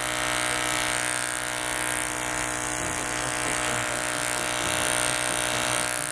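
Toy airbrush tattoo machine spraying paint: its small electric motor buzzes steadily, with a steady hiss of the spray.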